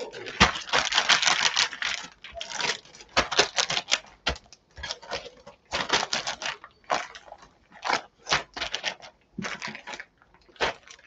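Plastic zip-lock freezer bags filled with raw chicken and marinade crinkling and rustling as they are pressed flat and pushed around by hand, in irregular bursts of small crackles and clicks.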